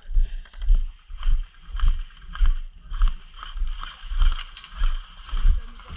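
Footsteps with clothing and gear rustling, a little under two steps a second, each step a dull thud.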